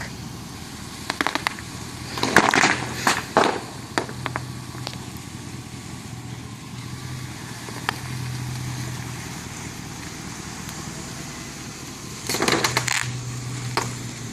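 Bubble wrap popping under the tyres of a Dodge 4x4 pickup crawling over it: scattered single pops and two dense crackling clusters, one about two seconds in and one near the end, over the truck's engine running with a steady low hum.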